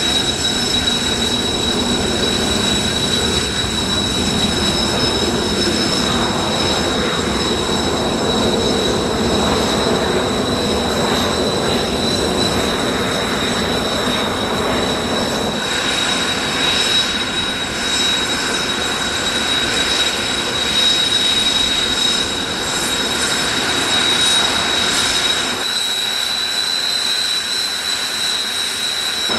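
Kawasaki T-4 jet trainers' turbofan engines running at idle on the ground: a steady high whine over a rushing noise. About 26 seconds in, the low rumble drops away and the whine steps slightly higher.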